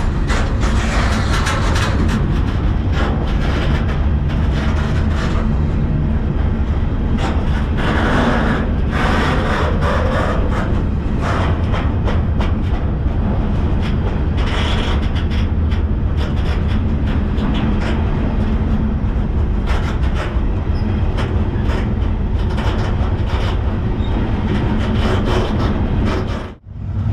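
Moving freight train heard from aboard a car: a steady low rumble of wheels on rail with irregular clanks and rattles. It cuts out abruptly for a moment near the end.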